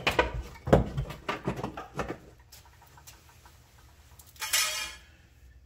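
Light knocks and rattles as a car's fuel tank is pushed and tugged from below while it refuses to drop, followed by a brief scraping rustle near the end.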